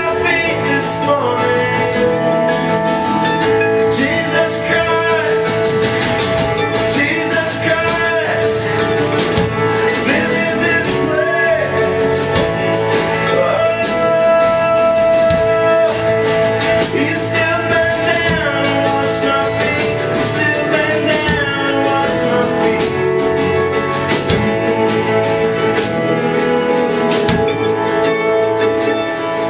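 Live worship song: a man singing into a microphone while strumming an acoustic guitar, played steadily throughout.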